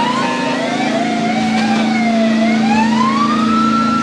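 A wailing siren, its pitch sliding slowly down and up again, with a second sweep overlapping it, over a steady low hum that cuts off at the very end.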